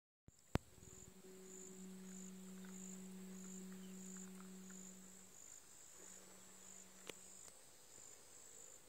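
Faint high-pitched insect buzz pulsing about one and a half times a second, over a low steady hum that stops about five seconds in and returns briefly. A sharp click just after the start is the loudest sound, with a second, weaker click near the end.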